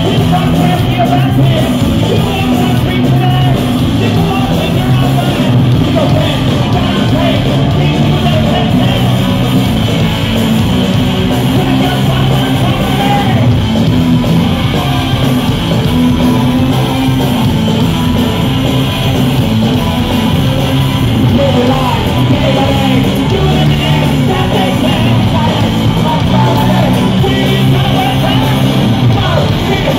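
Punk rock band playing live, loud and continuous: distorted electric guitars, bass and drums, with a shouted vocal over them.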